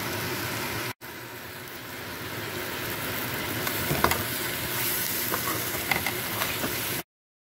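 Onion masala sizzling in oil in a steel pan, with a few sharp clinks of a spoon against the pan as halved boiled eggs are added. The sizzle breaks off briefly about a second in and cuts off suddenly near the end.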